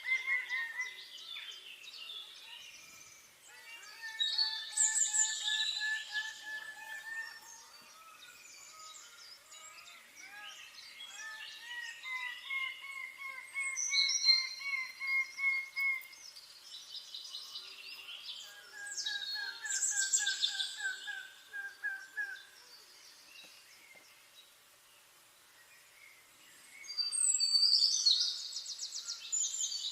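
Several songbirds singing and calling together. One bird repeats runs of short, even-pitched notes, each run lasting a few seconds, while others give bursts of high chirps, the busiest burst near the end.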